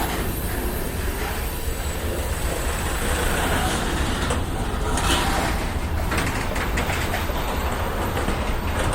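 Freight train rolling past with a steady low rumble from the cars and wheels, and a few short rattling sounds about four to seven seconds in.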